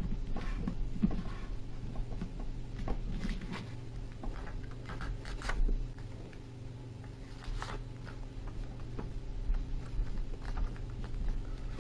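A sheet of paper being folded and creased by hand into a paper airplane, making irregular crinkles and rustles over a steady low hum.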